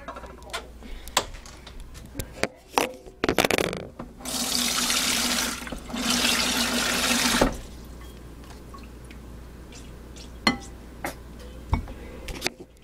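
Water running from a tap into a bowl for about three seconds, stopping briefly partway, as a bowl of soapy water is filled. Scattered light clicks and knocks come before and after.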